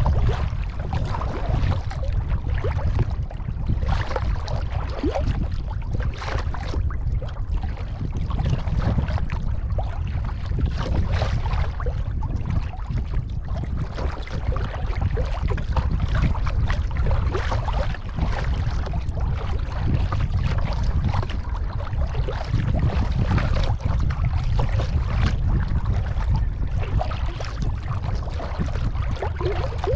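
Kayak paddle dipping and splashing in the water, stroke after stroke, over a steady low rumble of wind on the microphone.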